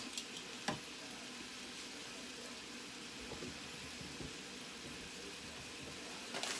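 Seasoned chicken tenders frying in a pan: a steady, even sizzle, with one light knock a little under a second in.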